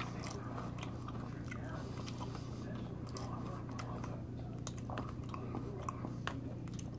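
A person chewing a mouthful of poke bowl close to the microphone: faint chewing with scattered small clicks, over a steady low hum.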